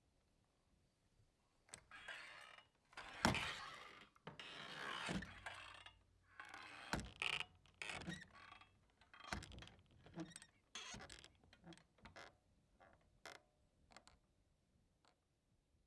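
Swinging saloon doors creaking on their hinges and knocking as they swing, loudest about three seconds in. The swings then die down into a string of shorter creaks and taps.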